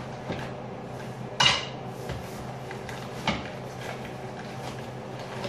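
A long black metal rod from a delta 3D-printer kit knocked and set down on a tabletop: a sharp metallic clank with a short ring about a second and a half in, then a lighter knock about three seconds in.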